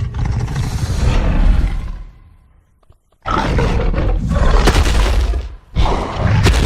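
Kaiju monster roar sound effects for Blacktaurus: a long, deep, rough roar trails off about two seconds in, and after a short pause two more long roars follow.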